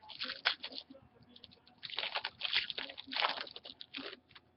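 Trading card packs and cards being handled: bursts of crinkling and rustling, a short flurry at the start and a longer one from about two seconds in.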